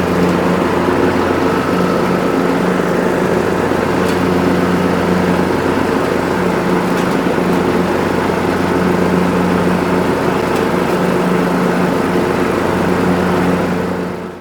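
Lawn mower engine running steadily at constant speed after its repair, sounding like a good-running mower; it fades out near the end.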